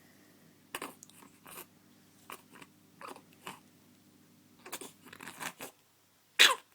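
A baby's small snuffling breaths and mouth noises, a few faint short bursts spread through, then one loud, short, forceful burst of breath near the end, of the kind a baby's sneeze or cough makes.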